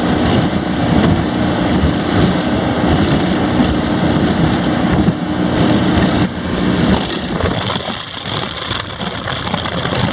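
Bay boat's outboard motor running at speed across choppy water, with wind buffeting the microphone. About six seconds in the engine note drops away as the boat slows down.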